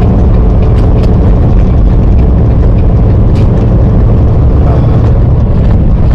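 Semi-truck driving: a loud, steady, low engine and road rumble.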